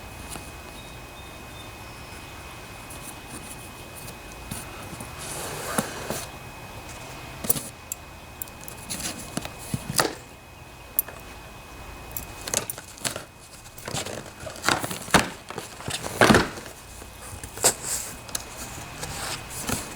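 A large cardboard box being opened with scissors: packing tape cut, and cardboard flaps and packing rustled and knocked about. Irregular scrapes and clicks that grow busier from about five seconds in.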